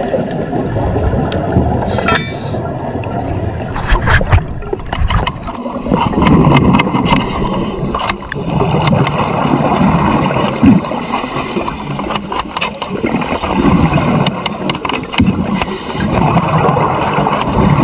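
A diver breathing through an underwater regulator: a hiss on each inhale and a rumble of exhaled bubbles every few seconds, close to the microphone.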